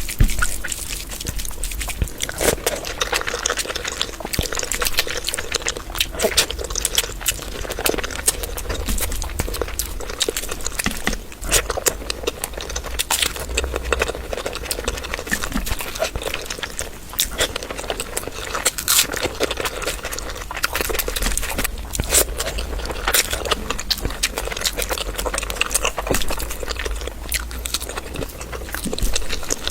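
A person eating close to the microphone: chewing and mouth smacking, with many small irregular clicks, over a low steady hum.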